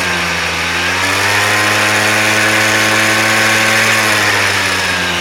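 Peugeot Speedfight 2 scooter's two-stroke engine running at a steady, slightly raised speed, its pitch lifting a little about a second in and easing off near the end. The owner is trying to show a crackling noise that the scooter makes.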